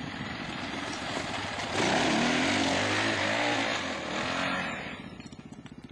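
Dirt bike engine revving hard under load as a rider climbs a steep hill. It is loudest from about two seconds in, its pitch rising and falling with the throttle, and it fades away near the end.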